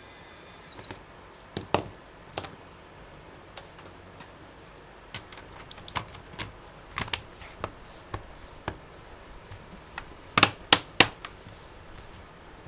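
Plastic laptop bottom cover and case being handled and fitted: scattered sharp clicks and taps, with three louder knocks in quick succession near the end.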